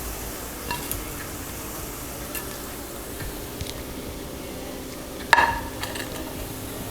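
Onions, green chillies and curry leaves frying in hot oil, a steady sizzle, with a spatula stirring and scraping the pan. A metallic clink against the pan about five seconds in.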